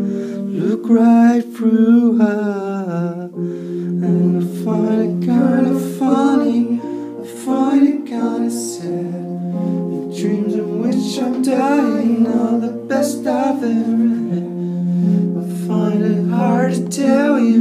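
Background music: a slow song with a voice singing over long held instrumental notes.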